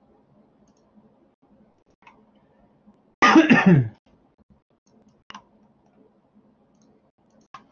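A person coughs once, a short loud burst about three seconds in. A few faint computer-mouse clicks come before and after it.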